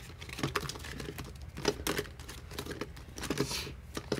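Rustling and crinkling of vellum cash envelopes and paper dollar bills being handled in a ring binder, with scattered light clicks and taps.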